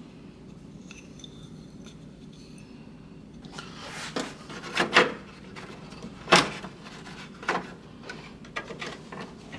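Hands working a plastic cover and wooden shim into place in a microwave's door-latch area. For the first few seconds there is only a low background, then rubbing and a series of sharp clicks and knocks, the loudest about five and six and a half seconds in.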